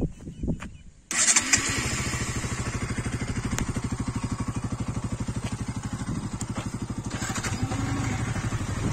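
Bajaj Pulsar NS200's single-cylinder engine started with the electric starter about a second in, catching at once and settling into a steady idle with a quick, even beat.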